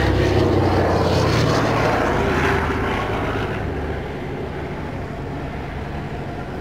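Douglas DC-3/C-47 Dakota's twin Pratt & Whitney R-1830 radial engines and propellers droning at power in a low pass. The sound is loud at first, then fades from about halfway through as the aircraft climbs away.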